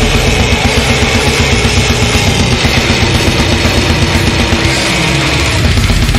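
Brutal death metal: heavily distorted guitars over fast, pounding drums, thinning out briefly about five seconds in before the full band crashes back in.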